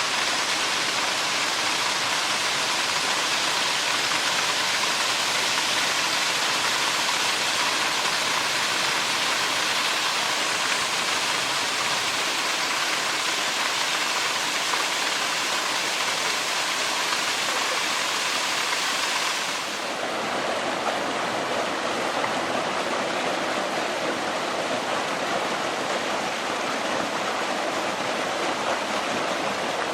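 Mountain valley stream rushing and splashing steadily. After about twenty seconds the sound turns abruptly duller and less hissy, as if heard from a different spot on the stream.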